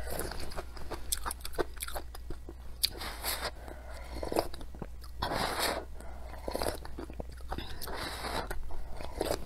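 Close-miked eating: chewing with wet mouth clicks, and long slurps of spicy broth drunk straight from the bowl, about three of them a couple of seconds apart, over a steady low hum.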